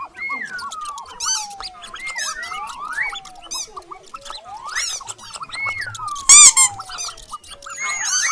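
Cartoon mouse squeak sound effects: clusters of short, very high squeaks every second or so, the loudest about six seconds in, over smooth whistle-like tones that slide down and back up again and again.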